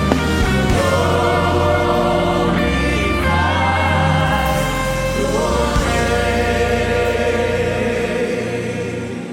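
Choir singing a gospel worship song in long held notes over steady low instrumental backing, dying down near the end.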